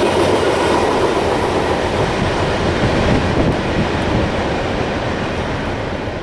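CSX coal train's railcars rolling past, wheels clattering on the rails in a loud, steady rush that begins to fade near the end.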